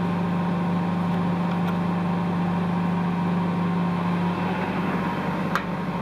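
Freshly rebuilt 2.2 kW water-cooled CNC router spindle motor running steadily on its new bearings during run-out testing, a smooth even hum, with a single sharp click about five and a half seconds in.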